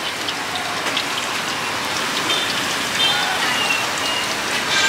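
Batter-coated potato strips deep-frying in a large pan of hot oil: a steady crackling sizzle.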